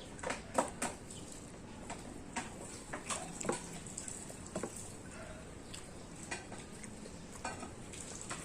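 Eating sounds up close: a person chewing, with irregular wet mouth clicks and smacks, several a second at times.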